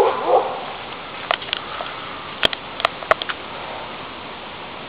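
An Airedale terrier gives a short yelping bark right at the start, followed by a few scattered sharp clicks or snaps over a steady outdoor hiss.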